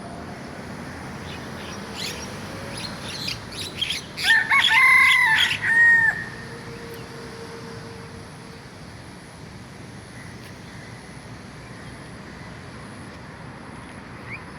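Rooster crowing once, a loud call lasting about two seconds that starts about four seconds in, with a few fainter short sounds just before it. A steady background hiss fills the rest.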